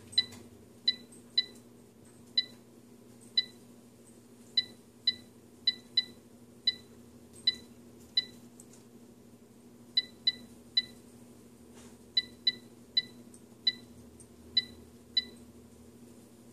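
AeroGarden ULTRA LED control panel beeping by itself: about twenty short, high electronic beeps at irregular intervals, with no buttons being pressed, as its malfunctioning controller runs through the menu on its own. A steady low hum runs underneath.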